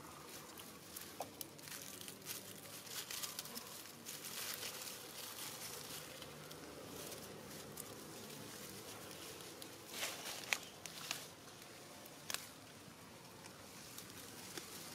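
Dry fallen leaves and twigs rustling and crackling under small monkeys moving over the forest floor, in irregular short crackles, with a few sharper snaps about ten to twelve seconds in.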